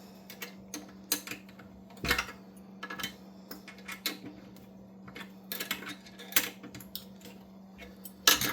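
Irregular metallic clicks and clinks of a hand tool working a workbench caster's bolt tight on a pottery wheel leg, some in quick clusters, over a steady low hum.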